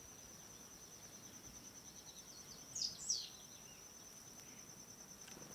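Faint natural ambience: a steady high, finely pulsing insect trill, with two quick descending bird chirps about three seconds in.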